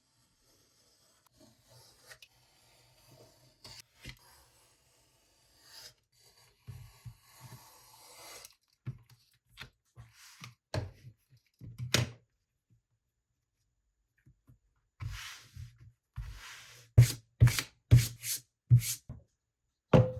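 Leather and hand tools being handled on a workbench: faint scraping and rubbing, scattered knocks, then two longer swishes near the end followed by about five sharp clicks in quick succession.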